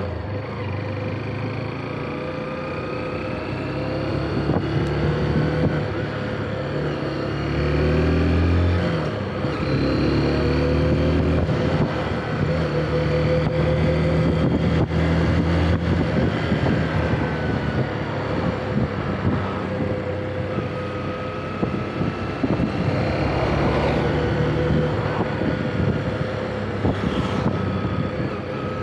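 Motorcycle engine pulling away and accelerating, its pitch climbing several times as it goes up through the gears, then running steadily at cruising speed, with wind noise on the microphone.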